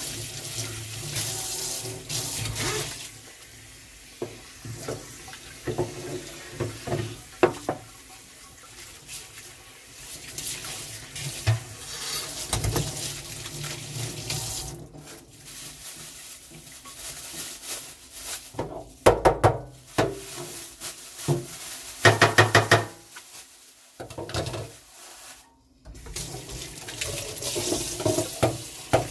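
Kitchen tap running into a stainless-steel sink, the stream splashing over hands as they rinse. Scattered knocks and two short rattling scrubbing bursts come against the metal about two-thirds through, and the water sound drops away briefly soon after.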